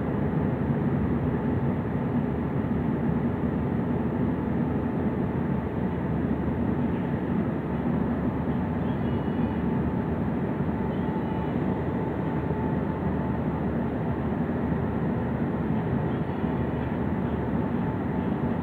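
Steady running noise inside a New Flyer transit bus under way: a low hum of engine, drivetrain and road noise, with a faint steady whine.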